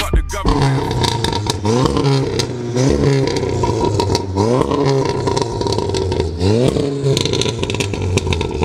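Volkswagen Golf R's turbocharged four-cylinder engine idling through its quad exhaust and blipped four times, each rev rising and quickly dropping back to idle. There is crackling from the exhaust, heaviest near the end.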